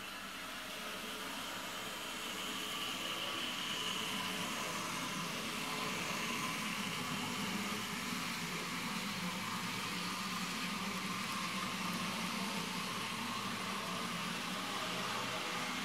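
Model passenger train running on the layout's track: a steady hum of the motor and the rolling wheels, a little louder from about two seconds in.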